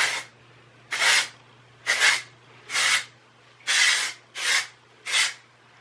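Short hisses of IGK Beach Club texture hairspray sprayed onto curled hair, about seven quick sprays roughly one a second.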